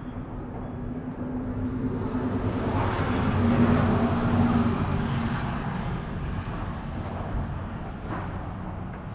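A motor vehicle passing by: engine hum and road noise swell to a peak about four seconds in, then fade away.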